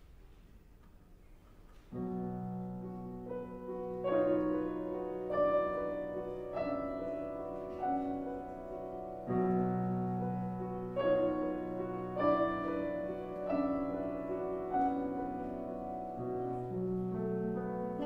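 Steinway grand piano coming in about two seconds in with held low chords, then new notes struck over them every second or so in a slow, ringing classical passage.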